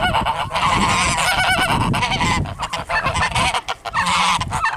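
A flock of domestic geese honking, many calls overlapping.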